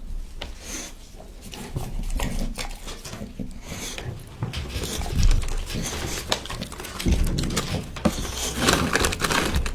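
A dog chewing raw meat up close: a dense run of wet clicks and smacks with low thuds.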